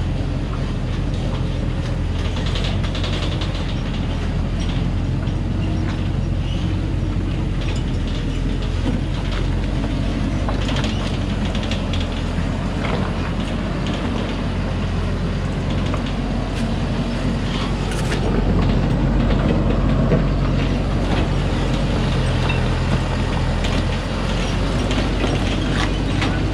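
Thaco Forland light truck's diesel engine running hard and steadily as the truck pulls up a steep rocky track, with scattered rattles and knocks from the truck body and stones under the tyres; the engine grows a little louder about two-thirds of the way through.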